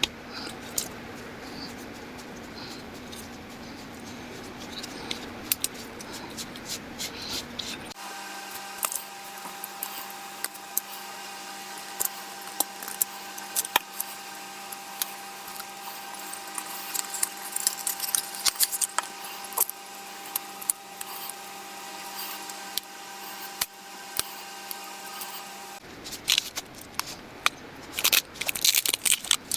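Small objects being handled: a run of light clicks and taps, like plastic parts and packaging being handled. From about eight seconds in until near the end a steady hum of several tones runs underneath.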